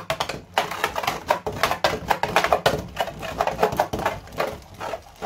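Beyblade Burst Dusk Balkesh top spinning in a plastic stadium, a fast, irregular clatter of clicks over a low whirr as it skitters around the bowl, moving around a lot.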